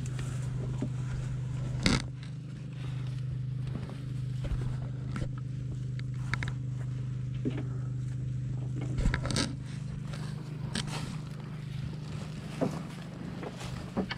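A steady low motor hum, with scattered scraping and knocking sounds over it, the loudest about two seconds in and again about nine seconds in.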